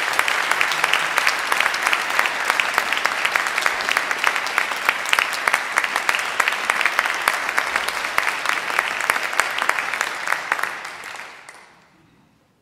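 Concert audience applauding, a dense, steady clapping that dies away near the end.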